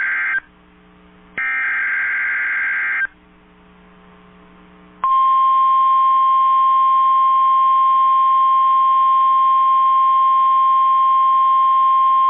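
NOAA Weather Radio EAS alert: the end of one SAME digital header burst, then a second burst of about a second and a half, separated by quiet gaps. About five seconds in, the steady 1050 Hz weather radio warning alarm tone begins and holds. The alert carries a Severe Thunderstorm Watch (SVA) header.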